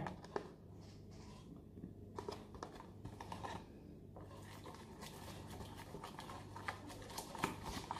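Faint scraping and scattered light clicks of a small plastic stirrer working through glue, foam beads and glitter against the sides of a plastic tub, over a low steady room hum.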